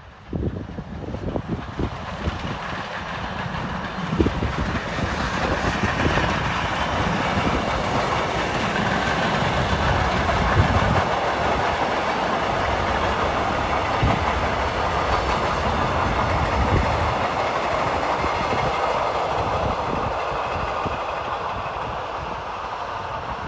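Class 44 three-cylinder 2-10-0 heavy freight steam locomotive working past with a freight train, its low exhaust beats building as it approaches and loudest about halfway through as it passes. Then the wagons roll by on the rails, the sound easing off slightly near the end.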